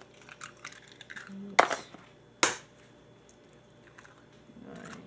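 Eggs tapped against a plastic container to crack the shells: two sharp knocks a little under a second apart, with small clicks of shell being pulled apart.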